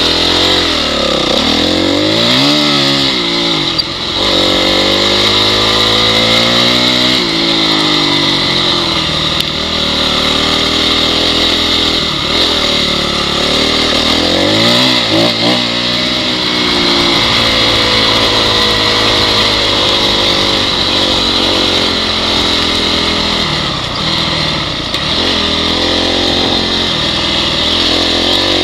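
Honda CRF dirt bike's single-cylinder four-stroke engine running under way, its pitch rising and falling over and over as the throttle opens and closes and it changes gear, over a steady high hiss.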